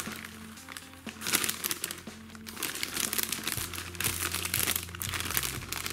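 Plastic bag of salad leaves crinkling and rustling in bursts as the leaves are shaken out of it, over light background music with steady bass notes.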